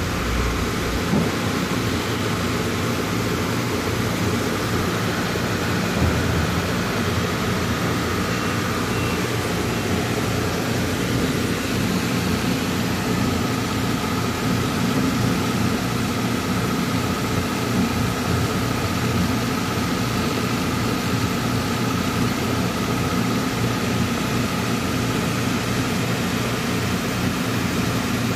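Diesel engine of a heavy truck idling steadily, with an even low pulse under a continuous rumble.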